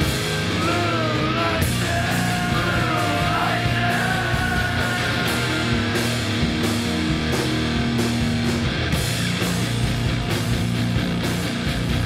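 Heavy rock music with electric guitar and steady drums, and a wavering melody line over it for the first half.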